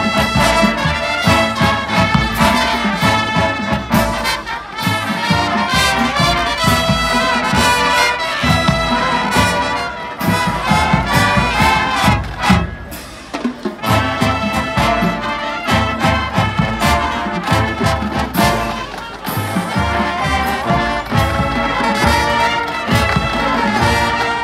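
High school marching band playing live: trumpets, trombones and sousaphones over marching percussion, with a brief softer moment about halfway through.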